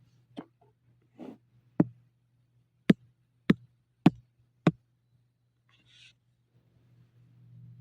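A series of seven sharp clicks at uneven spacing. The four loudest come about every half second in the middle, over a faint steady low hum, with a short soft rustle near the end.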